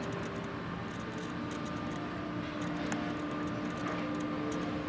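Steady mechanical hum holding one constant low tone, with scattered faint high ticking over it.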